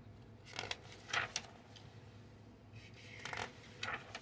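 Paper pages of a printed instruction manual being handled and turned, a few short rustles.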